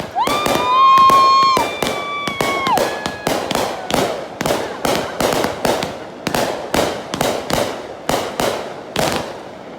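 Fireworks going off in a rapid series of sharp bangs, about three a second. In the first few seconds a loud high-pitched whistle sounds over them.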